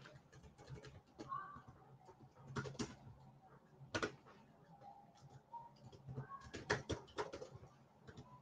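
Faint, scattered clicking and tapping of a computer keyboard and mouse, in a few quick clusters with single clicks between them.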